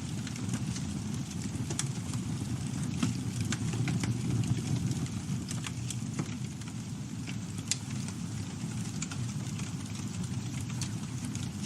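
Campfire burning: a steady low rumble of flames, with irregular sharp crackles and pops from the burning wood.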